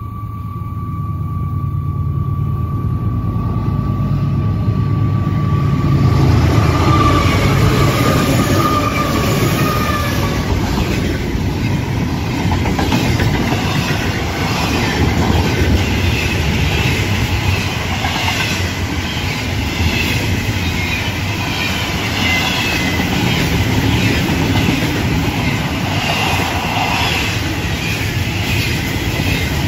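Diesel freight locomotives approaching and passing close by with a deep engine rumble that builds to its loudest about six seconds in. A double-stack container train of well cars then rolls past with steady wheel-on-rail clatter.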